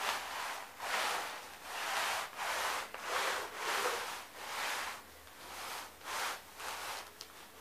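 Repeated rasping rub strokes on a rough surface, a steady back-and-forth of about one and a half strokes a second.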